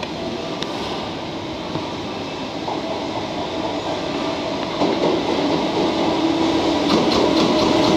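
JR Freight EF210 electric locomotive hauling a container freight train, approaching at low speed: steady running noise with a hum, growing louder as it draws near, and the first clicks of wheels over rail joints near the end.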